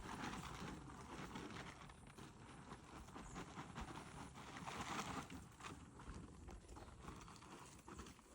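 Cattle coming in to the feed: faint, irregular hoof steps and shuffling with soft knocks.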